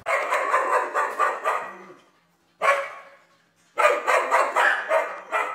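A dog barking in quick runs of short barks, about six a second: a long run, a brief one about two and a half seconds in, and another from about four seconds in.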